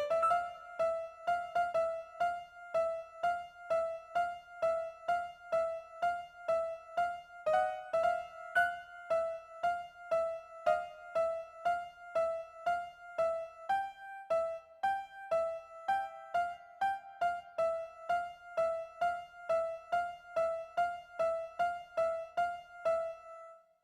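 Electronic emergency alert tone: a piano-like note repeating about twice a second, mostly on the same pitch with a few short changes of pitch, then cutting off at the end.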